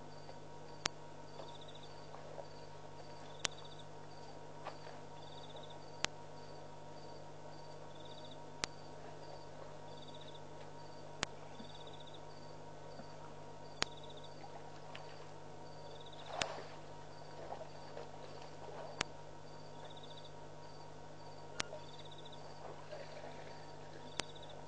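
Night insects chirping in short, regular pulses, with a sharp click about every two and a half seconds over a low steady hum. A brief, fuller rustle-like sound comes about two-thirds of the way through.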